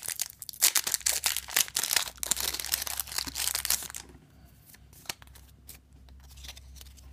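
Foil Yu-Gi-Oh booster pack wrapper being torn open and crinkled, a dense crackle for about four seconds. It then gives way to softer, scattered sounds of the cards being handled.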